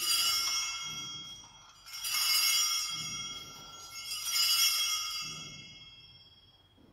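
Altar (sanctus) bells rung three times, about two seconds apart, each ring fading away. They mark the elevation of the consecrated host at Mass.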